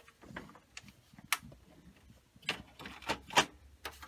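Sharp plastic clicks and light knocks from the scanner unit and housing of a Canon ImageClass MF634CDW laser printer being handled, several separate clicks, the loudest about a second before the end.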